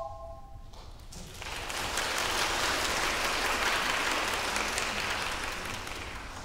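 The ensemble's last held chord dies away, then an audience applauds, swelling after about a second and tapering off near the end.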